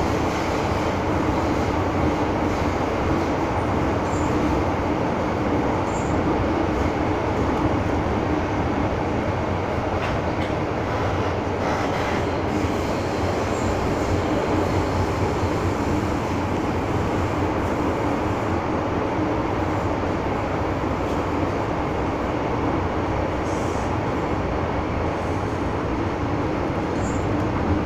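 MTR M-Train rolling along at speed, heard from inside the passenger car: a steady rumble of wheels on rail and traction equipment, with a constant low hum.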